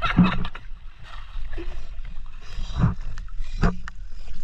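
Sea water splashing and sloshing as a fishing net with a caught fish is hauled and handled by hand at the surface. A few sharper splashes stand out, just after the start and twice near the end, over a steady low rumble of moving water.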